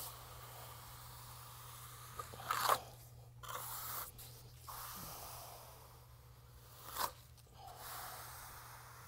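Hand finishing trowel scraping across freshly laid urethane concrete screed as it is smoothed, in several separate sweeping strokes, the sharpest about two and a half seconds in and again about seven seconds in. A steady low hum runs underneath.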